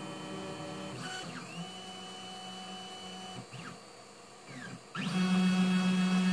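Stepper motors of a modified Ultimaker 3D printer whining as the print head and bed move during automatic bed calibration. Pitched tones glide up and down as each move speeds up and slows down. The sound is quieter around four seconds in and louder again from about five seconds.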